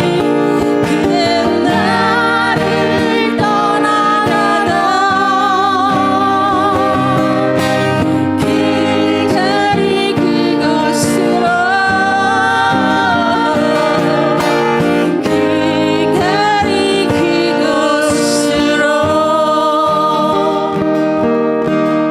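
A song sung with vibrato over acoustic guitar accompaniment.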